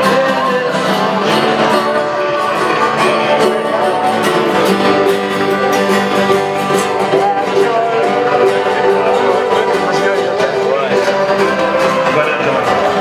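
Live acoustic folk music: several acoustic guitars strummed in a steady rhythm, playing a sea shanty.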